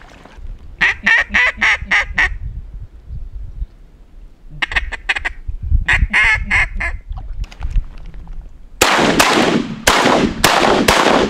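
Three quick runs of loud duck quacking, then about six shotgun blasts in fast succession over the last few seconds, as hunters fire at passing ducks.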